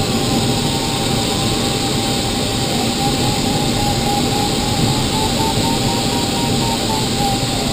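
Glider in flight: steady rush of airflow over the cockpit canopy, with the variometer's audio tone sounding throughout. About three seconds in it changes to a quickly pulsing beep that climbs slightly in pitch and then drops back near the end, the variometer signalling rising air.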